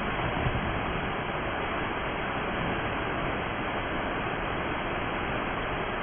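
Steinsdalsfossen, a 50 m waterfall, heard close by: falling water makes a steady, unbroken rush of noise.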